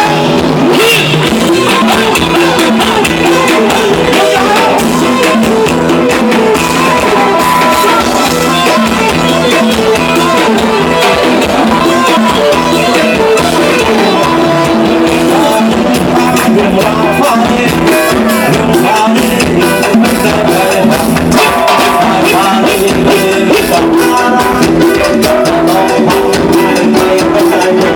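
Thai ramwong dance music: a band playing a song with a singer over drums and percussion keeping a steady beat.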